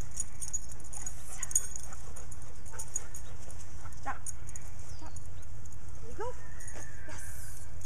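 A young dog whining and yipping in short, high, rising-and-falling calls, two of them close together about six seconds in, over a steady low hum.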